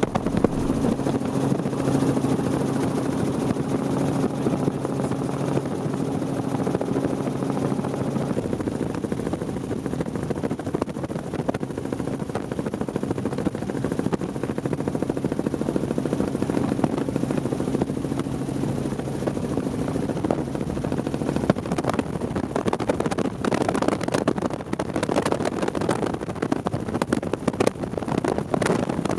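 Helicopter engine and rotor noise, a steady drone with a low hum that fades out about twenty seconds in, after which the noise turns rougher and gustier.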